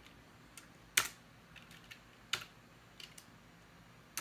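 A few separate computer keyboard key presses with pauses between them, the loudest about a second in and another a little past the two-second mark. These are keystrokes such as Enter, stepping a text-mode setup program from one screen to the next.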